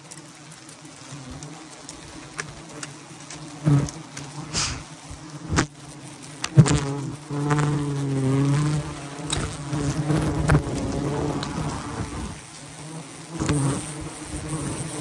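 Honeybees buzzing in a steady hum, which swells and wavers in the middle as bees fly close past. A few sharp clicks and knocks sound in the first half.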